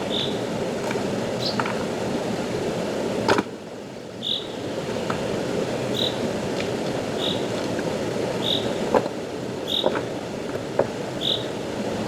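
Steady rushing of a forest stream, with a short high chirp repeating about once a second and a few sharp clicks. The loudest click comes about three and a half seconds in, and the water sound dips for a moment after it.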